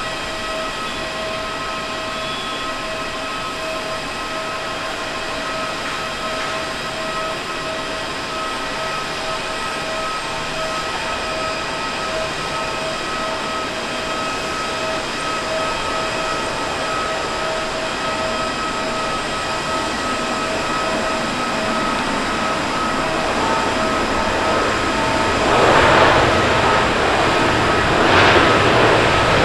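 Airbus A350's Rolls-Royce Trent XWB jet engines on approach and landing: a steady, many-toned whine over a rush of jet noise that slowly grows louder. Near the end the noise swells in two loud rushes as the airliner rolls on the runway.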